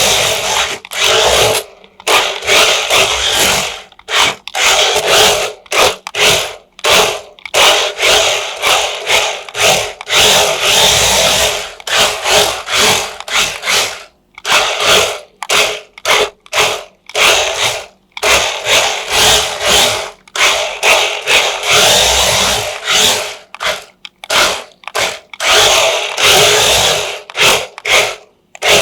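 Small electric motor of an RC toy whirring in short bursts, starting and stopping again and again, roughly once a second.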